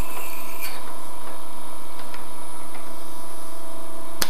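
Wood lathe running steadily with a steady motor tone while a 4.2 mm twist drill bores into a spinning steel rod, with light scraping from the cut. There is a sharp click near the end.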